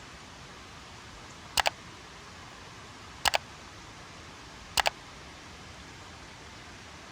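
Steady rain hiss, broken three times by a sharp double click, about a second and a half apart.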